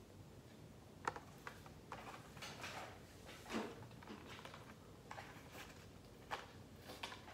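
Faint, scattered clicks and crinkles of a Hot Wheels blister pack and cardboard card being handled and opened.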